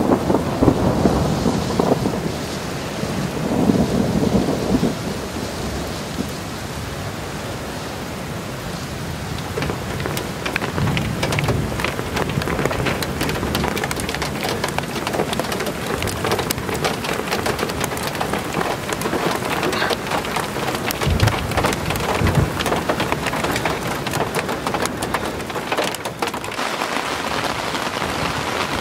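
Rain falling during a thunderstorm, with low rolls of thunder in the first few seconds and again several times later. From about ten seconds in, many individual drops strike close by.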